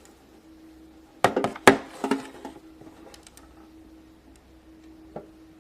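Small hard objects being handled on a surface: a few sharp knocks just over a second in, then lighter clicks and one small tap near the end, over a faint steady hum.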